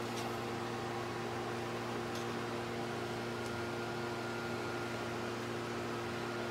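Steady low electrical hum of a running fan or motor, with a couple of faint light clicks.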